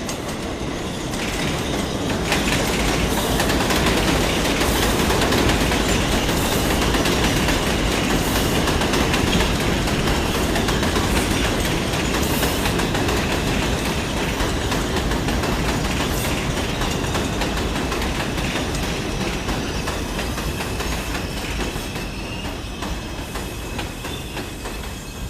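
New York City Subway R142 train moving through the station. The noise builds about two seconds in, holds steady, and eases off over the last few seconds.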